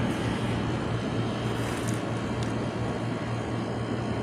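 Emerson Quiet Kool 7600 BTU window air conditioner running: a steady compressor hum under the even rush of the fan blowing air. It is running cold after years unused.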